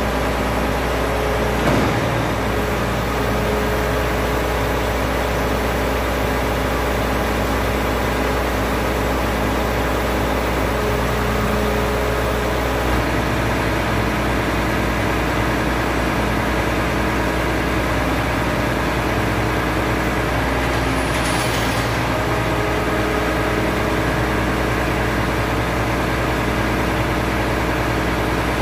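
Container side-loader truck's engine running steadily while its crane works the container lift, its note shifting slightly about thirteen seconds in. There is a short click near the start and a brief hiss about twenty-one seconds in.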